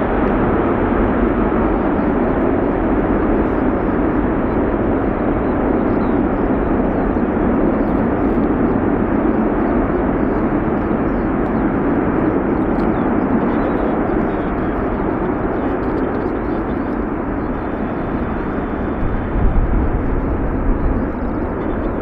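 Boeing C-17 Globemaster's four turbofan engines running on the ground: a loud, steady jet roar with a deep rumble that slowly eases, with a couple of brief thumps near the end.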